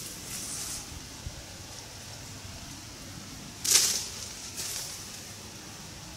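Brief loud swish about three and a half seconds in, with fainter swishes near the start and just before five seconds, from an angler's movement among the reeds at the water's edge, over a steady outdoor background.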